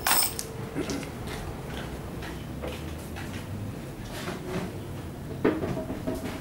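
Scattered clicks and knocks from a metal alarm padlock being handled, the loudest about five and a half seconds in; the alarm siren does not sound.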